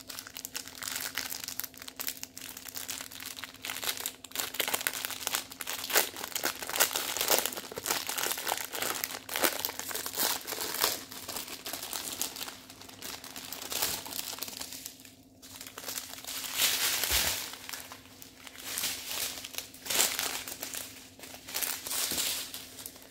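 Plastic packaging crinkling and rustling in irregular bursts as a strip of small bagged diamond painting drills is handled and unrolled. A faint steady hum runs underneath.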